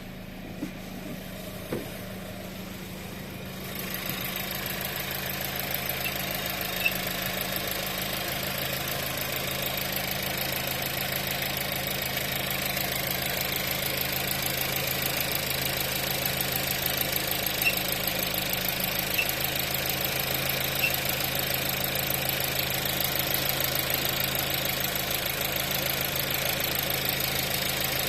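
Second-generation VW Tiguan engine idling steadily, with short high squeaks a handful of times. The squeak is the engine fault the owner is recording. Two sharp clicks come near the start, and the engine sound gets louder about four seconds in.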